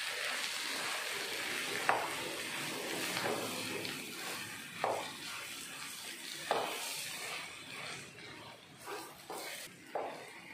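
A spatula stirring and mixing mashed potato masala in a nonstick frying pan with a steady sizzle of hot oil. There are a few sharp knocks of the spatula against the pan.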